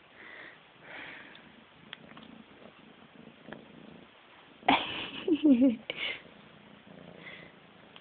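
Savannah kitten giving a few short meows with bending pitch a little past halfway, the loudest sound here; quieter rustling and handling noise around them.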